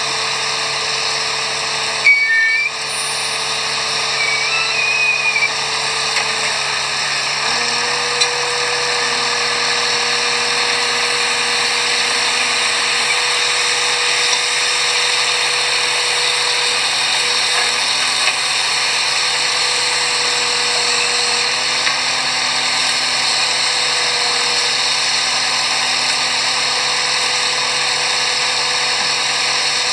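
HFW water-well drilling rig running steadily as it drills, a loud, even machine noise with a strong hiss over a constant hum. The sound briefly drops out and jolts about two seconds in, and the hum shifts slightly in pitch about seven seconds in.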